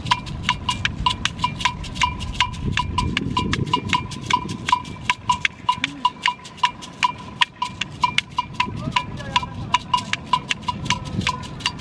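Struck percussion instrument beating out a fast, steady rhythm of about five sharp, ringing strikes a second, all at the same pitch, accompanying a stick dance; a low rumble runs underneath.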